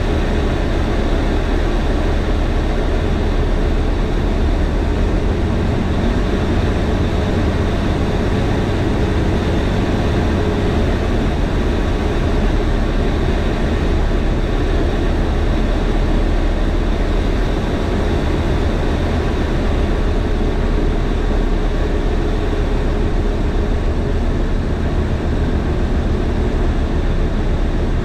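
Single-engine propeller light aircraft's engine and propeller running at a steady, even drone, heard inside the cockpit during approach and landing.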